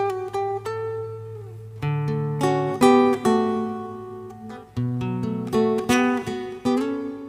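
Background music: acoustic guitar picking and strumming a tune.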